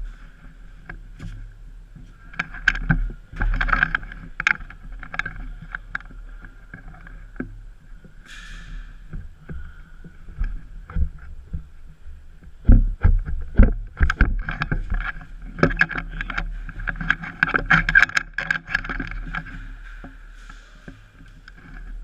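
Irregular knocks, clicks and scrapes over a steady high-pitched hum, busiest about three to five seconds in and again from about thirteen to nineteen seconds in.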